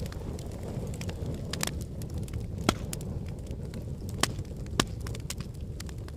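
Wood fire in a fireplace burning steadily with a low rumble, crackling with scattered sharp pops, three of them louder than the rest.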